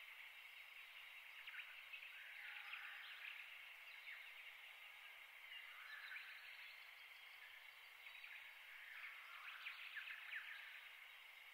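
Near silence: faint outdoor ambience with a steady high hiss and a few clusters of distant small-bird chirps and twitters.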